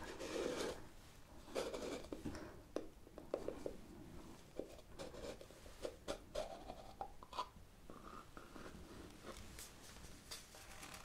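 Fingers and fingernails scratching, rubbing and tapping over a small wooden bowl, making a scattering of soft scrapes and light taps.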